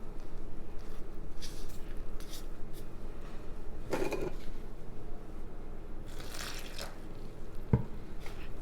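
Teff flour dough being mixed with lukewarm water in a bowl: a few short wet scrapes and squishes, and a sharp knock near the end, over a low steady hum.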